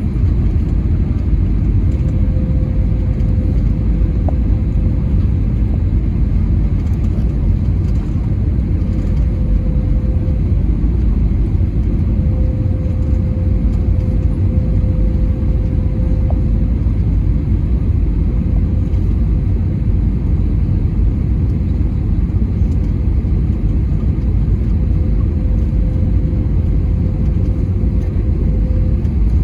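Cabin noise inside an Airbus A320neo: a steady, loud low rumble of the aircraft, with a faint steady whine that comes and goes.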